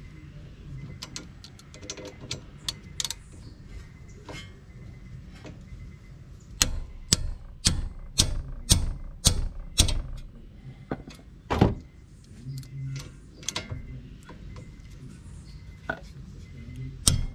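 Ratchet wrench clicking in regular strokes, about two a second, as a front brake caliper bolt is tightened. The clicking is light at first, comes in a strong run from about six seconds in to about twelve, and starts again near the end.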